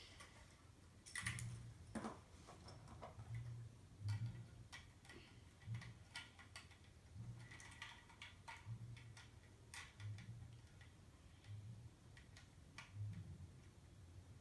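Scattered light clicks of plastic Lego pieces being handled and pulled apart, over the faint low thud of distant music's bass beat repeating about once a second.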